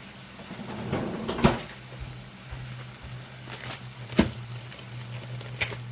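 Kitchen cupboard being opened and shut and things handled inside it: two sharp knocks about a second and a half and four seconds in, with a few lighter clicks, over a steady low hum.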